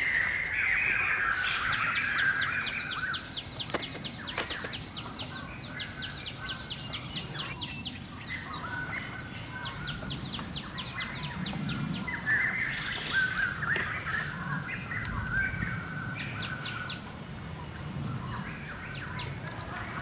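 Wild birds calling outdoors: a warbling phrase at the start and again about two-thirds of the way through, and a fast, even run of clicking notes, several a second, from about two seconds in to about seven.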